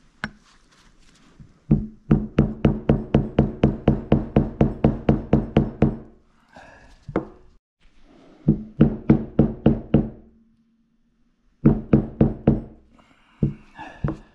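Rapid hammer taps driving a 6902RS sealed bearing into the bearing seat of a Bafang G60 hub motor, about five blows a second. There is one long run of blows, then three shorter runs, and each blow leaves a low metallic ring.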